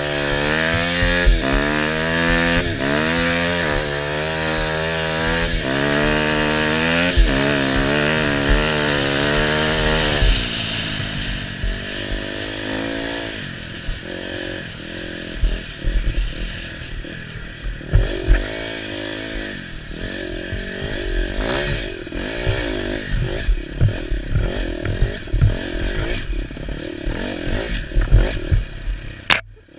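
KTM 250 EXC two-stroke dirt bike engine at hard throttle, its pitch climbing and dropping again and again as it accelerates through the gears for the first ten seconds. After that it runs lower and more unevenly, on and off the throttle, with frequent thumps as the bike crosses rough ground.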